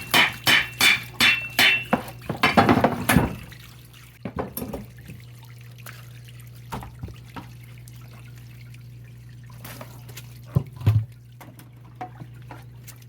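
A wrench tapping the metal clamp and lid of a Jandy cartridge pool filter housing in a quick run of about ten ringing strikes, loosening it so the lid can come off. After about three seconds the strikes stop, leaving scattered small clicks and a couple of knocks over a steady low hum.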